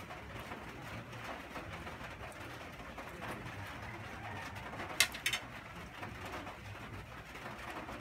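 Close-miked eating of pancit canton noodles: chewing and mouth sounds. A fork clinks twice in quick succession against a ceramic plate about five seconds in.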